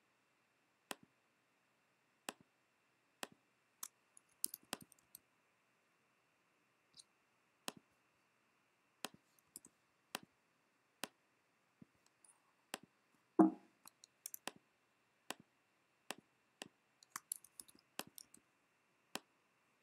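Computer mouse clicks and keyboard key presses: sharp, irregular single clicks about once a second, with a few quick clusters. About two-thirds of the way through comes one short low thump, the loudest sound.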